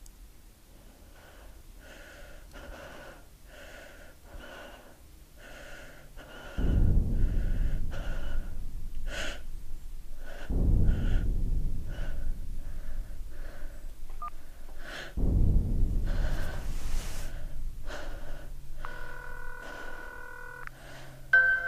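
Horror-film soundtrack of quick, repeated gasping breaths, cut through three times by a sudden deep low hit that fades slowly. Near the end a bright chiming tune comes in.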